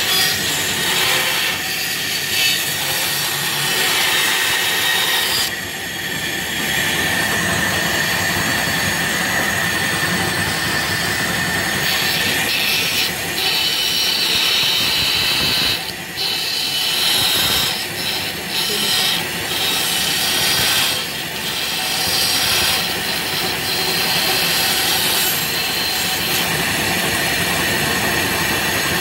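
A 16-speed bandsaw running steadily and cutting a curve through a stack of plywood, a continuous sawing noise with a few brief dips as the feed eases off.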